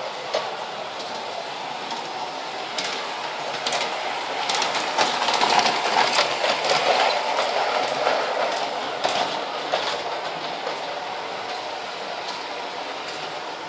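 LGB G-scale model train running on its track, the wheels clicking over the rail joints with a steady rolling rattle. It grows louder as the train passes close by about halfway through, then falls back.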